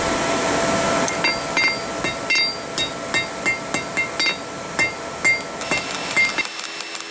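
A steady rushing noise for about the first second. Then a blacksmith's hammer strikes hot steel bar stock on the anvil in a run of quick blows, about three a second. Each blow has a bright metallic ring as a small square drift is forged.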